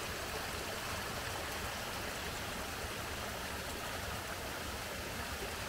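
Water running steadily through a leaky log weir, spilling from a pool almost a meter higher to the one below.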